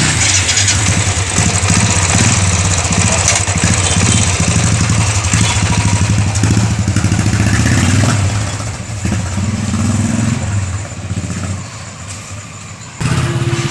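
Royal Enfield Classic 350's single-cylinder engine running as the motorcycle is ridden, with a rushing noise over it; the sound eases off about eight or nine seconds in and stays quieter for the last few seconds.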